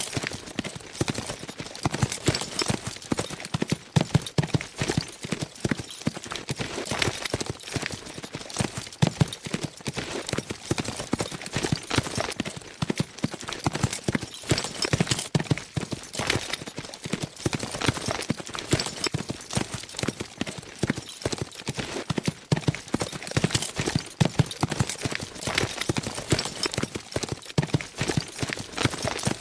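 Several horses galloping fast: a dense, continuous drumming of hoofbeats that overlap irregularly.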